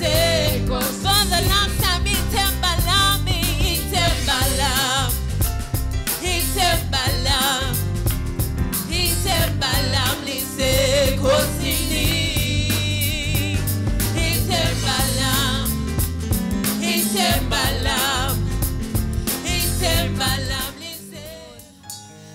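A woman singing a gospel worship song into a microphone, holding notes with vibrato, over backing music with a strong bass and drums. The music drops away about a second before the end.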